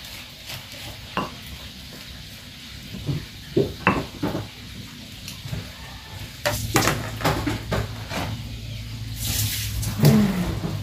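Scattered clicks, knocks and scrapes of a plastic spatula against a stone mortar and plastic bowls as chilli paste is scraped out. The loudest knock comes near the end, as the stone mortar and pestle are moved. A low steady hum sets in about halfway.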